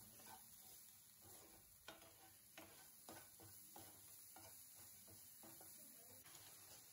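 Faint, irregular taps and scrapes of a wooden spatula stirring chopped onion, capsicum and garlic in a non-stick frying pan.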